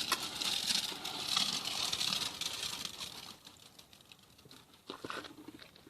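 Gritty scraping and crunching of wet concrete mix and stone for about three seconds, then quieter with a few short knocks near the end.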